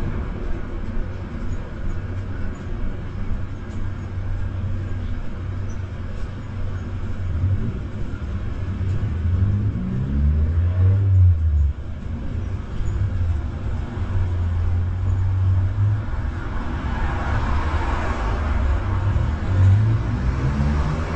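Road traffic on a city street: cars running past, with one engine rising in pitch about ten seconds in and a louder car passing near the end.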